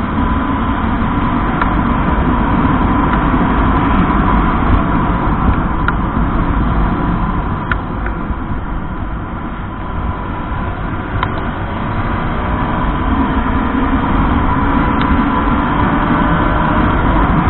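Wind rushing over the microphone of a moving Honda RS150R, with the motorcycle's single-cylinder engine running underneath, its pitch rising now and then.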